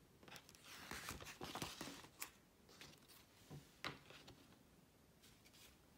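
Faint paper rustling as a picture-book page is turned, lasting about a couple of seconds, followed by a few light clicks from handling the book.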